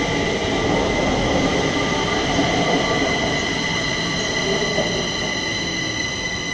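Kaohsiung MRT three-car electric metro trains running through the station, a rumble of wheels on rail with a steady high-pitched whine over it.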